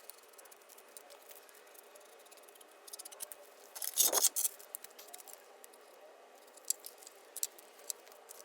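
Crackling and ticking of a plastic vapor barrier sheet being handled and pressed onto a car's inner door panel, with one loud crinkle about four seconds in and a few sharp ticks near the end.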